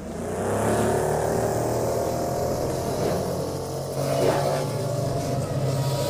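Electronic intro soundtrack with a steady, synthetic engine hum of a futuristic motorbike, held tones that barely change in pitch.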